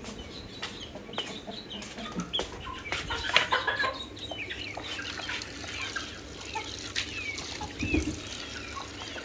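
Chickens clucking and calling, many short calls overlapping, with a few knocks and water running from a tap.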